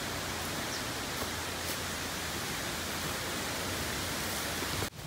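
Steady, even hiss of outdoor background noise with no distinct events. It cuts off abruptly near the end.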